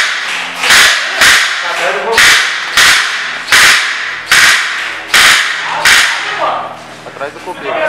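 Airsoft gun fired in single shots, about nine sharp pops roughly one every 0.7 s, stopping about six seconds in.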